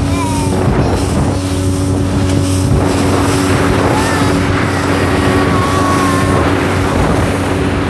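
Motorboat engine running steadily at cruising speed, with wind buffeting the microphone and the rush of water along the hull.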